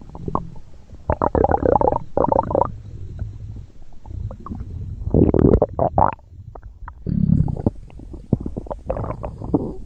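Stomach growling sound effects: a run of gurgling rumbles that swell in several louder bursts, about five in all, over a constant low gurgle with small bubbly clicks.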